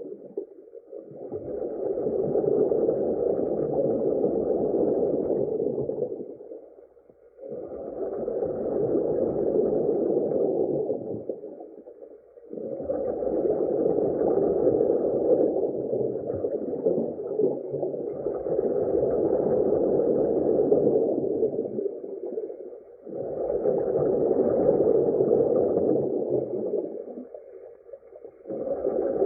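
Underwater ambience sound effect: muffled rushing, gurgling water with nothing crisp or high in it, swelling and fading in slow waves every five seconds or so.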